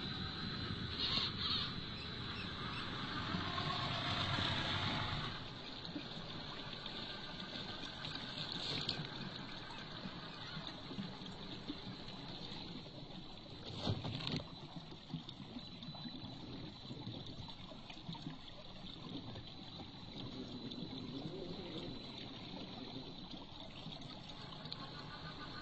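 Electric drivetrain of a 1/10-scale RC crawler (Traxxas TRX-6 Mercedes G 63 6x6) whining as it drives through snow for the first five seconds. Then a quieter stretch of stream water trickling as an RC crawler wades through a shallow icy creek, with one sharp knock about fourteen seconds in.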